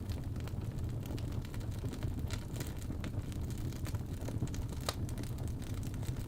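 Log fire crackling, with scattered sharp pops (a loud one near the end), over a steady low rumble of storm wind.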